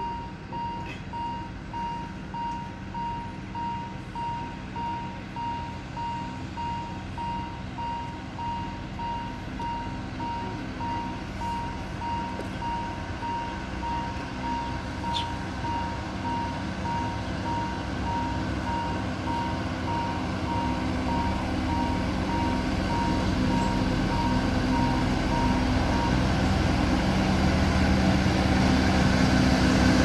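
A warning bell rings in a steady electronic ding, just under twice a second, and stops about four-fifths of the way through. Beneath it a narrow-gauge diesel locomotive, Alishan Forest Railway DL-49, approaches with its engine hum growing steadily louder until it is the loudest sound near the end.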